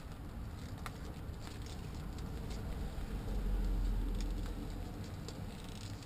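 Wind buffeting the microphone as a low rumble, with a stronger gust about three and a half seconds in, and a few light clicks of handling: a handbag strap and a stiff PVC coat moving.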